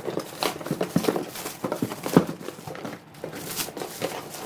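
Packaging being handled and opened by hand: crinkling and rustling with irregular clicks and knocks.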